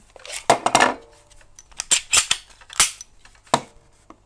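A third-generation Glock pistol being taken apart by hand to get at its flat recoil spring: a series of sharp metallic clicks and clacks, two of them with a brief ring.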